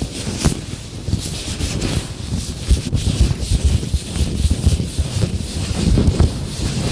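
Latex gloves rubbing and rustling close to the microphone, with irregular low bumps and occasional sharp ticks as the gloved hands handle it.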